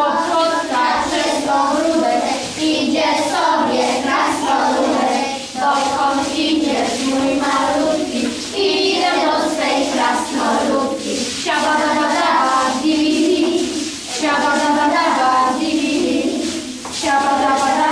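A group of children singing a Polish action song together in phrases, their voices in unison.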